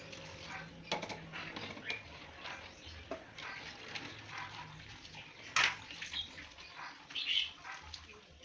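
Water running and splashing, with scattered clinks and knocks throughout and one sharper knock about halfway through.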